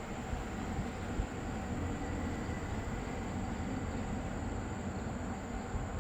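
Panasonic CS-PN18TKP split air conditioner's indoor unit running: a steady blower and airflow noise with a low rumble and a faint, steady high whine.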